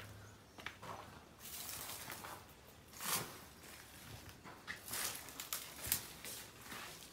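Footsteps scuffing over a dirt and debris floor, a few uneven steps with rustling.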